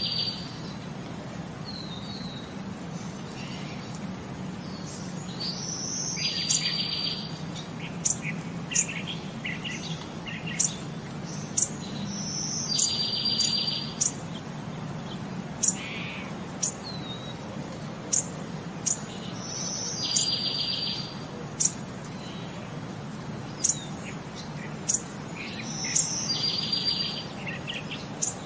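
Bird song repeating the same phrase about every six and a half seconds: a short high whistle, then a fast trill about a second long, with sharp high chirps in between, over a low steady hum.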